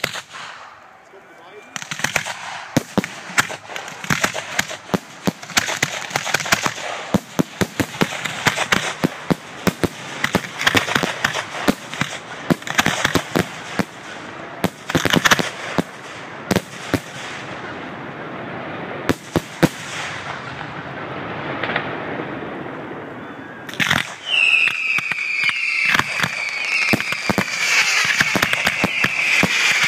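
Fireworks display: a dense run of bangs and crackling from bursting shells. In the last few seconds a high whistle with a slowly falling pitch sounds over the bangs.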